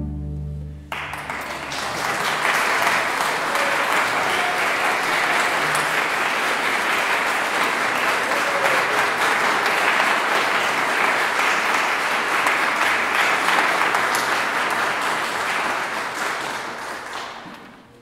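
A string orchestra's final held chord cuts off about a second in, and an audience breaks into steady applause, which fades away near the end.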